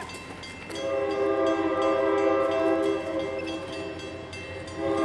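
Locomotive air horn sounding several notes at once. A long blast starts about a second in, eases off partway through, then blasts loudly again near the end.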